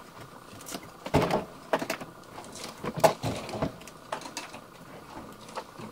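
Parts and packing pieces knocking and scraping as they are lifted out of a Bambu Lab X1E 3D printer's enclosure during unpacking. A cluster of sharp knocks comes about a second in, another around three seconds in, then a few lighter taps, over a faint steady hum.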